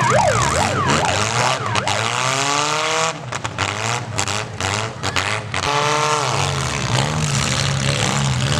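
Several small-car engines revving at once, their pitch rising and falling over and over.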